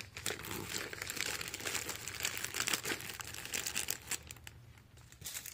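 Plastic zip-top bags crinkling as a hand handles them and pushes them into a lunch bag, a run of quick crackles that thins out near the end.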